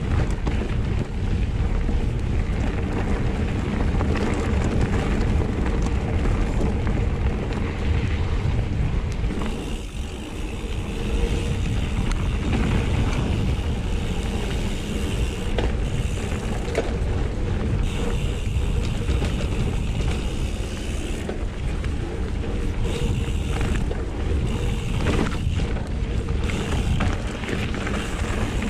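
Wind buffeting an action camera's microphone during a mountain bike ride, a continuous low rumble mixed with tyre and trail noise.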